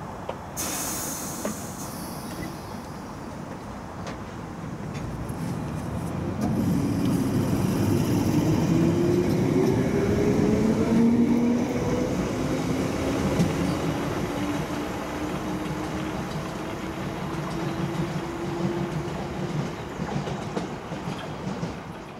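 London Underground 1973 Stock Piccadilly line train pulling away from the platform. A short hiss of air comes about half a second in, then the traction motors' whine rises steadily in pitch as the train accelerates away.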